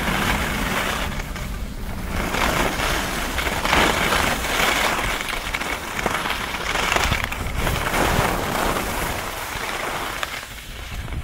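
Skis scraping and hissing over hard-packed, chopped-up piste snow, swelling with each turn.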